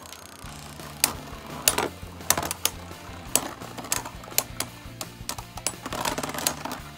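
Two Beyblade Burst tops, a 3D-printed Ares and Spriggan Requiem, spinning in a plastic stadium and repeatedly clacking against each other. The sharp, irregular hits start about a second in, over background music.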